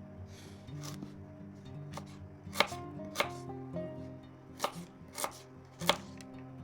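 A knife chopping on a cutting board, about seven separate, unhurried strokes, over background music.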